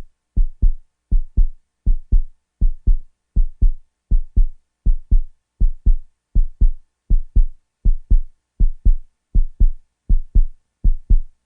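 Heartbeat sound effect: pairs of deep lub-dub thumps repeating steadily, about 80 beats a minute.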